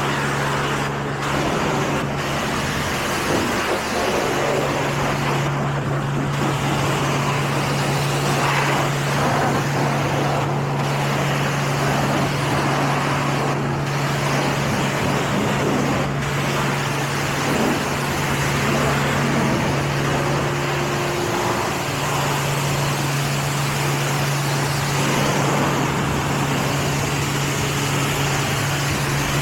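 Car wash machinery running steadily: a low, even hum under a continuous rushing of water spray or air.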